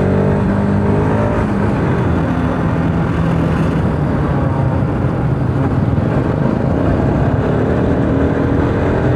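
Motorcycle engine running under way, with a steady rush of wind noise over the onboard microphone.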